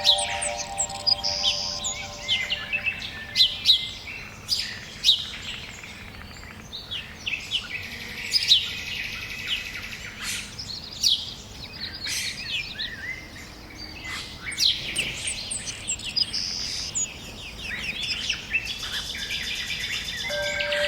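Several songbirds chirping and singing in a dense, overlapping chorus of quick high calls and whistles.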